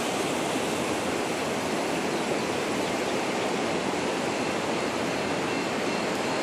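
Floodwater rushing fast across a flooded road, a steady, unbroken rush.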